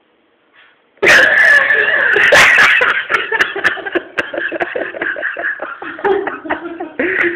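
Loud burst of laughter breaking out suddenly about a second in after near silence, then going on in short rhythmic ha-ha pulses.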